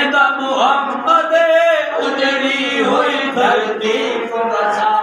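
A man's voice chanting in a long, melodic recitation style, holding and bending notes rather than speaking.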